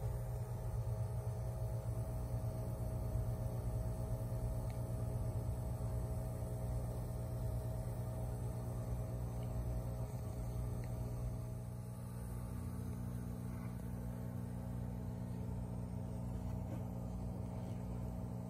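Steady low electrical hum of aquarium equipment, with a slight change in its tone and level about twelve seconds in.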